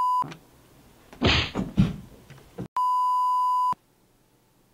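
Steady 1 kHz television test tone, the bars-and-tone beep, cutting off just after the start. Two short, loud noisy bursts come in the middle, then the tone returns for about a second and stops abruptly.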